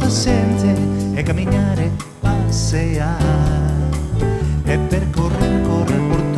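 Live band playing, with acoustic and electric guitars over drums, bass and keyboard. The music drops briefly about two seconds in, then comes back at full level with cymbals.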